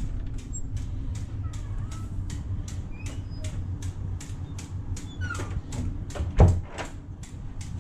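A hotel room door shuts with one loud thud about six and a half seconds in. Before it come sharp clicks at about three a second, with a few faint squeaks, over a steady low hum.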